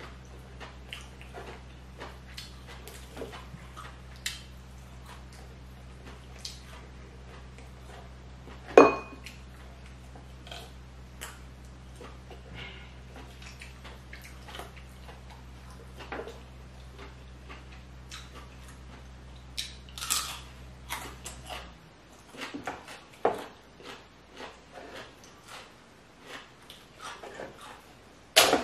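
Close-up eating sounds: scattered clicks and crackles of cooked lobster shell being picked apart by hand, with chewing. A sharp, loud crack comes about nine seconds in, another cluster around twenty seconds, and one more just before the end. A low steady hum stops about twenty-two seconds in.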